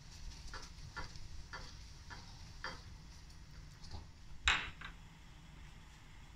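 Light taps and clicks from handling a raw fish fillet, its paper wrapping and a ceramic plate on a kitchen counter, coming about every half second. About four and a half seconds in there is one sharper clink, the loudest sound, with a smaller one just after it.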